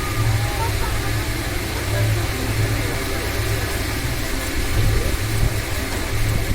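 Barsha high-speed table fan running: a steady low motor hum with a rush of air.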